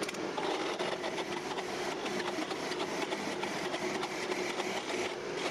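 Drill press driving a 27/64-inch twist bit into a 3/4-inch grade 2 steel bolt: a steady motor hum with the scraping of the bit cutting steel. This is the tap-drill hole for a half-inch thread.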